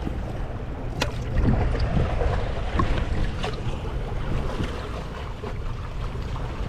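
Wind rumbling on the microphone over the lapping of river water, with a few light clicks and knocks.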